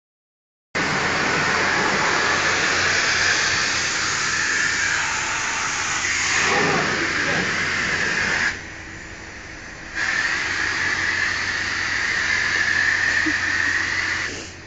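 High-pressure spray wand at a self-serve car wash blasting water onto the concrete floor, a loud steady hiss. The spray stops for about a second and a half just past the middle as the trigger is let go, then starts again and cuts out near the end.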